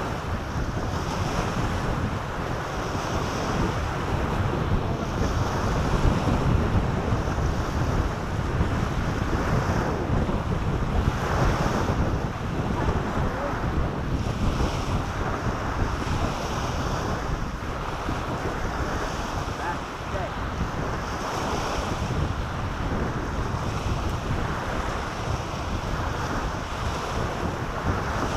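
Wind buffeting the microphone over small waves washing onto a sandy shore, a steady rushing noise with swells of higher hiss every couple of seconds.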